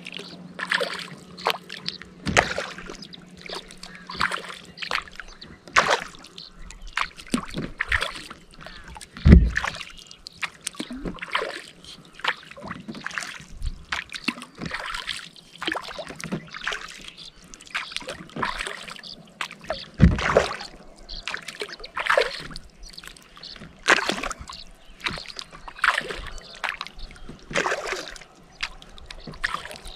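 Kayak paddle strokes in calm lake water: the blades dip, splash and drip about once a second, with a few louder thumps along the way.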